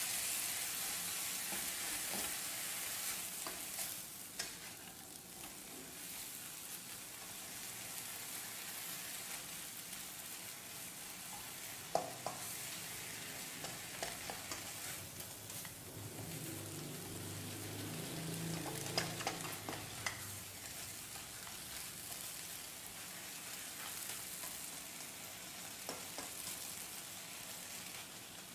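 Water morning glory stir-frying in a hot wok: a steady sizzle, louder for the first few seconds, as a spatula tosses the greens, with a few sharp spatula knocks against the pan.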